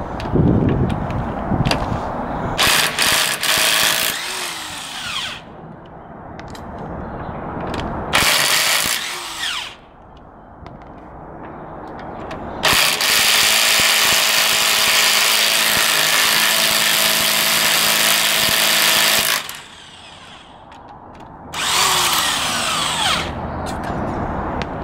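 Cordless power tool spinning out a car's wheel bolts in four separate runs, the longest about six seconds. Several runs end in a falling whine as the motor spins down.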